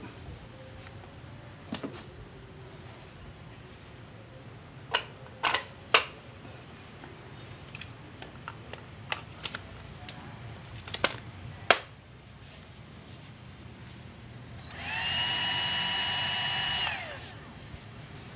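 Several sharp plastic clicks and snaps as an 18-volt battery pack is fitted to a cordless combo power tool. Then the tool's electric motor spins up with a rising whine, runs steady for about two seconds and winds down.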